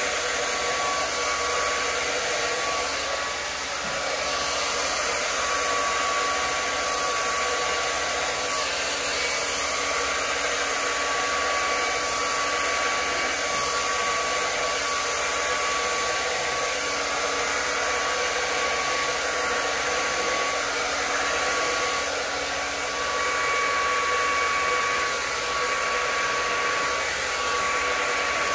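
Conair hair dryer running steadily on its cool setting, blowing a continuous rush of air with a thin steady whine in it.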